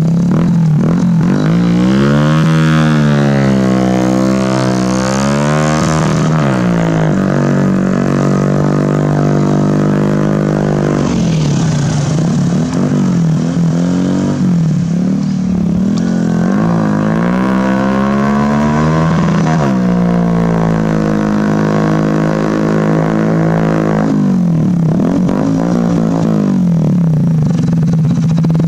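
Hero Splendor motorcycle's single-cylinder four-stroke engine running through an aftermarket SC Project exhaust as the bike is ridden. The engine note holds a steady pitch, while its upper tones swirl up and down several times as the bike moves.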